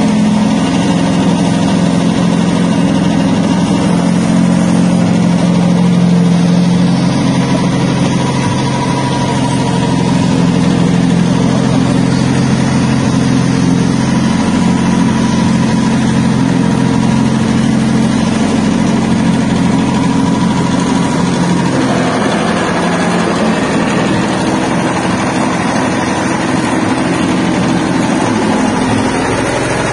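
Soybean hull-peeling and separating machine running steadily, its motor and drive giving a continuous low drone. The sound grows noisier and harsher about two-thirds of the way through.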